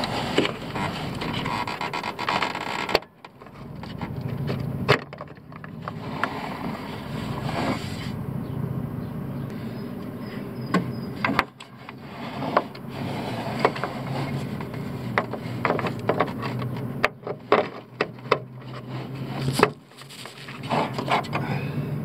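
Plastic clicks and knocks as a turn-signal bulb socket is twisted out of a pickup's headlight housing and the bulb is swapped by hand, over a steady low hum.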